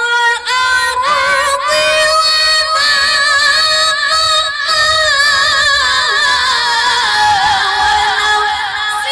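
A woman reciting the Qur'an in the melodic tilawah (qira'ah) style, in a high voice. She sings one long phrase with rapid wavering ornaments on held notes, and the pitch sinks lower near the end.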